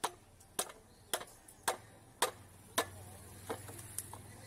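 Catla fish head being cut on a boti blade: sharp, even cracks of bone and flesh against the blade, about two a second, growing weaker near the end. A faint low hum comes in about halfway.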